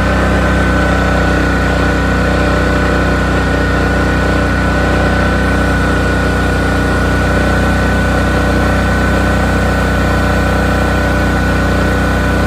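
Honda EU7000iS fuel-injected single-cylinder inverter generator running hard at its maximum load of about 7,500 W, with its overload indicator on, shortly before its breaker trips. The engine note holds steady, with a steady high whine along with it.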